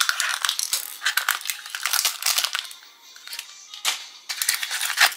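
Crinkling and crackling of a surprise egg's wrapper and plastic capsule being handled and pulled open, with sharp clicks of the plastic, in two busy stretches with a short lull about three seconds in. Background music plays under it.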